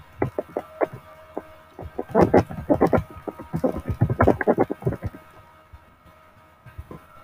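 Typing on a computer keyboard: quick runs of key clicks, thickest from about two to five seconds in, with a few stray clicks near the end, over a faint steady hum.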